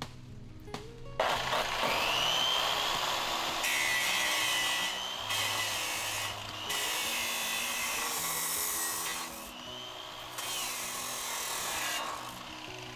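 Electric abrasive cut-off saw grinding through steel square tubing: it starts about a second in, a high whine that sags and recovers as the disc bites into the metal over a hissing grind, and stops near the end.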